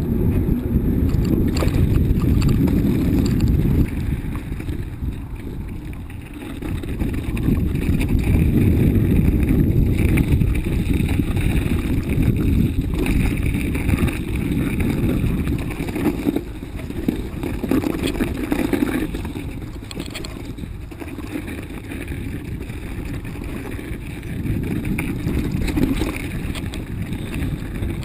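Mountain bike ridden over a rough, snowy trail: wind rushing over a handlebar-mounted camera's microphone, mixed with the rumble of the tyres and frame. It swells and eases as the speed changes.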